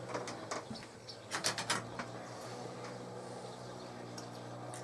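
Light clicks and taps of small whitemetal parts and a hand tool being handled, with a quick cluster of clicks about a second and a half in, over a steady low hum.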